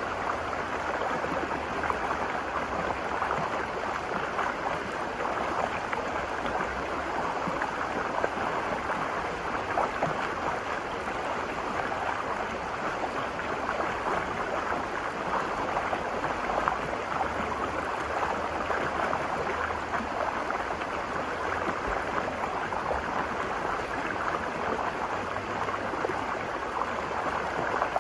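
The Virgin River flowing and rushing steadily over rocks, an even continuous water noise.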